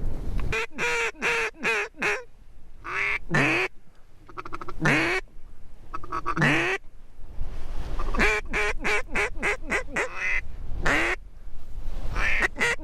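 Mallard hen-style duck call blown in quacking sequences: runs of quick quacks, a few single drawn-out quacks that drop in pitch, then another quick run.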